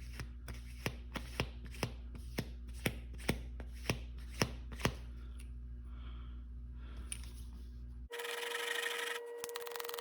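Steel single-bevel broadhead blade drawn in backward polishing strokes across a compound-loaded cardboard and paper strop: a run of short scraping ticks, about two to three a second, easing into quieter rubbing. About eight seconds in the sound changes abruptly to a steady hiss with a faint whine.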